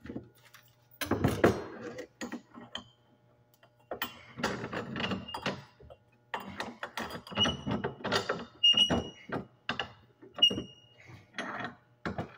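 Scrap copper pipe and fittings being handled and set down: irregular clatter and knocks, with a few short metallic rings.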